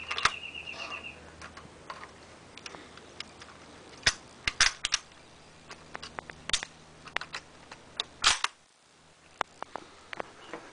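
A Mauser K98 bolt-action rifle being loaded: a string of metallic clicks and clacks as cartridges are pressed from a stripper clip into the magazine and the bolt is worked, with several loud sharp cracks. A short run of high beeps plays in the first second.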